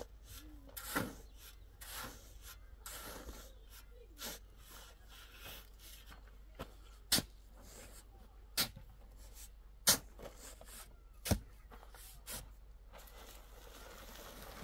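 Metal shovel scraping and chopping into a heap of dry sand and cement being mixed by hand, with scattered gritty scrapes and five sharp strikes in the second half, about one every second or so.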